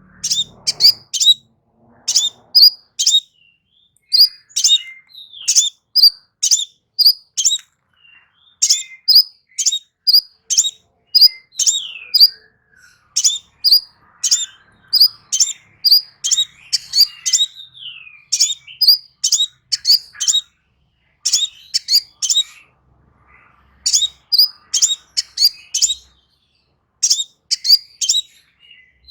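Crimson sunbird singing: sharp, high, very short chirps repeated in quick runs of several notes with brief pauses between runs, and a few fainter thin twitters among them.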